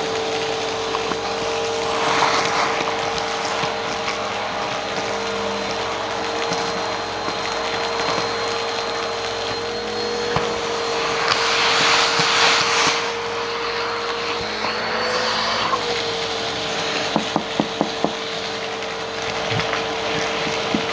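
Cylinder vacuum cleaner running with a steady motor whine while its hose sucks crunchy debris off a rug. There are louder rushes of crackling intake about 2 seconds in and again at about 11 to 13 seconds, and a quick run of sharp clicks near 17 to 18 seconds.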